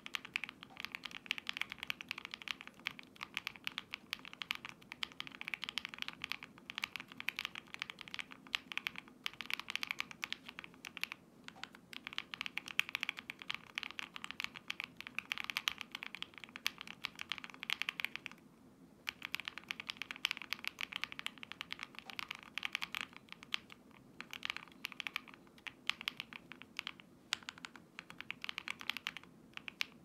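Fast continuous typing on a QK60 mechanical keyboard with lubed and filmed KTT Strawberry linear switches, an aluminium plate, full foam and ABS dye-sub keycaps: a dense run of keystroke clacks, with a brief pause a little over halfway through.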